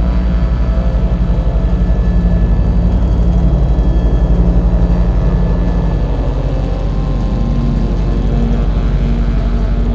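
Helicopter rotor and turbine engine heard from inside the cabin in flight: a loud, steady drone with a fast, even beat from the rotor blades.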